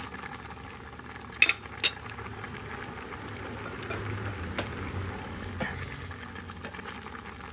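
Tamarind chicken broth bubbling at a boil in a pot, with a few sharp clicks, the loudest two about a second and a half and two seconds in.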